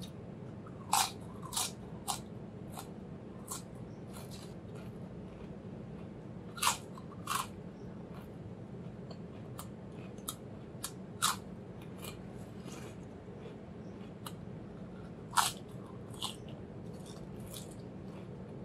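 Crisp ridged potato chips crunching as they are bitten and chewed: sharp, loud bites every few seconds, with softer chewing crunches between them, over a faint steady hum.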